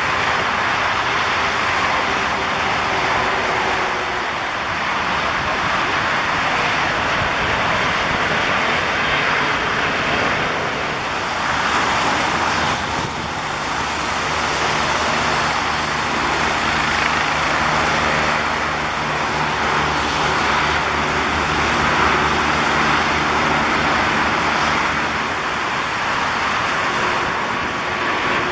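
Heavy rain falling in a dense, steady hiss. A low engine drone joins under it from about a third of the way in and fades near the end.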